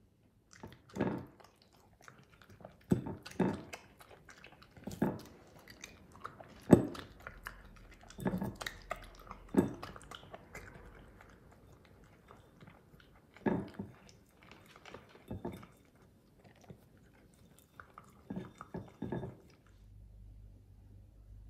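Miniature dachshund eating chunks of raw beef from its bowl: irregular wet chewing and biting, in spurts, that stop shortly before the end.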